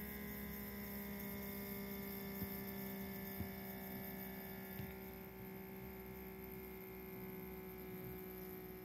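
FoodSaver handheld vacuum sealer's small electric pump running steadily with a humming whine, drawing the air out of a mason jar through a jar-sealer attachment to vacuum-seal the canning lid. Its sound gets a little quieter about five seconds in.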